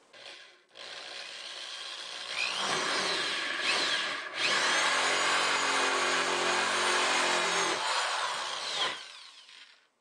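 Electric drill with a 2-inch hole saw cutting through the plastic wall of a wastebasket: the motor runs up and the saw grinds steadily through the plastic, a brief falter a little past four seconds, then the drill winds down and stops about nine seconds in.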